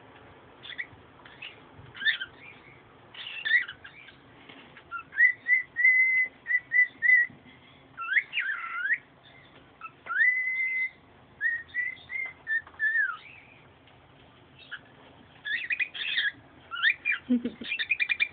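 A pet bird whistling and chirping. Short chirps give way to a string of held whistled notes in the middle, some sliding up or down in pitch, and then a quick flurry of chirps near the end.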